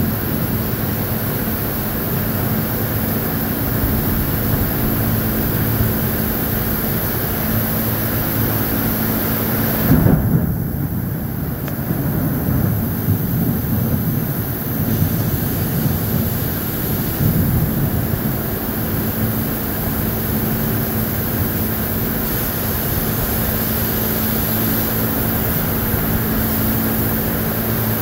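Heavy thunderstorm rain and wind, a steady loud rush with low rumbling under it. A louder low thump comes about ten seconds in.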